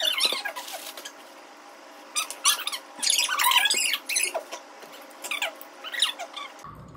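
An added comic sound effect: a string of short, high squeaky squeals at irregular intervals.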